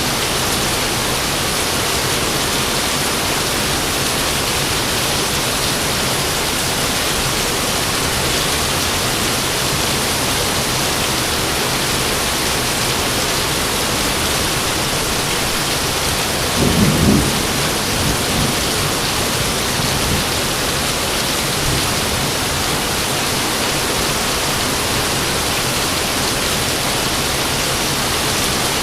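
Steady rain hissing, with a short thunder rumble a little past halfway and a few fainter rumbles trailing after it.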